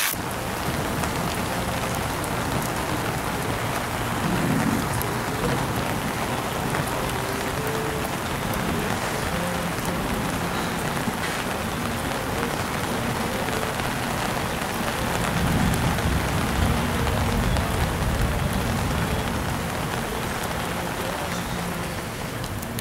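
Steady rain falling on a wooden deck and open water, with low rumbles about four seconds in and again around fifteen seconds.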